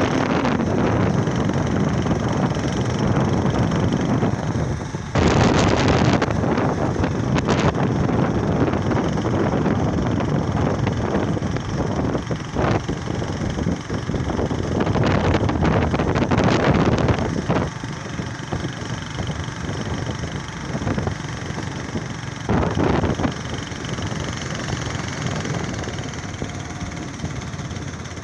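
Wind buffeting the microphone, a steady rumble that swells in gusts about five seconds in, again around fifteen seconds in, and briefly near the end.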